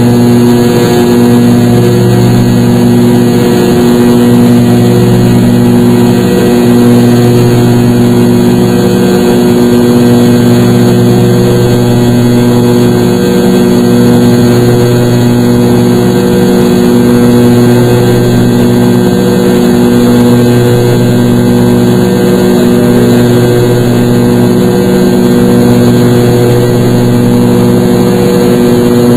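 Airliner jet engines droning, heard inside the passenger cabin during the climb after takeoff: a loud, steady hum of several low tones with a slow throbbing that swells and fades every few seconds.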